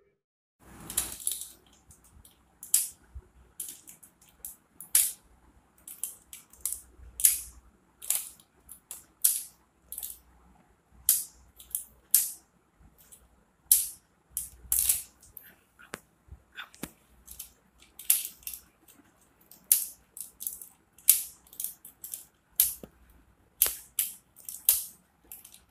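A solar lantern's plastic switch clicking again and again at an irregular pace of about one to two clicks a second, as the lantern is switched on and stepped through its light modes.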